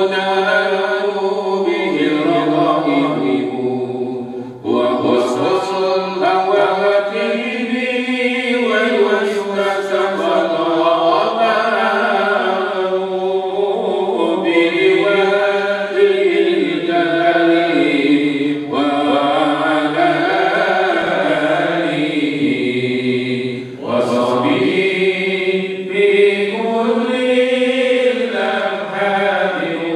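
A man's voice reciting the Quran in a slow melodic chant over a microphone and loudspeaker, long held notes rising and falling, with short pauses for breath a few seconds in and again about two-thirds of the way through.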